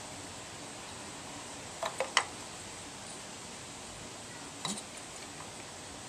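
A few sharp plastic clicks and knocks as coil-on-plug ignition coils are handled and set down into the plug wells of a Toyota 1.5 engine: three close together about two seconds in, the last the loudest, and a softer pair near five seconds, over a steady faint hiss.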